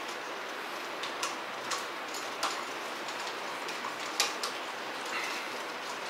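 Small, irregular clicks and ticks of a screwdriver working the terminal screw of a three-way light switch as a looped wire is tightened under it, over a steady background hiss.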